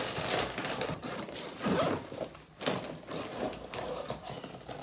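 Irregular rustling, light knocks and scrapes of items being handled and packed into a bag.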